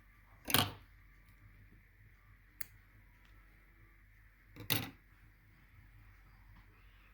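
Handling noise from hand-sewing a fur coat: two brief scraping rustles, each lasting about a quarter of a second, about four seconds apart, with a single sharp click between them.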